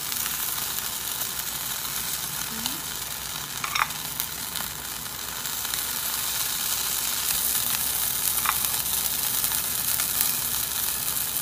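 Bánh khọt batter sizzling in the hot cups of a cast-iron pan as more batter is ladled in to top the fillings, a steady frying hiss. Two light clicks come through, about four seconds in and again near the end.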